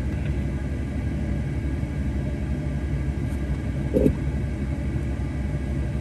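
Steady low rumble of road and engine noise inside a moving car's cabin, with one brief knock about four seconds in.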